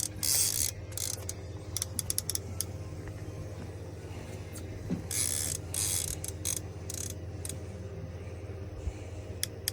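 Fishing reel being cranked as a hooked fish is reeled in, with an irregular clicking of the reel's mechanism and short scraping bursts. A steady low hum runs underneath.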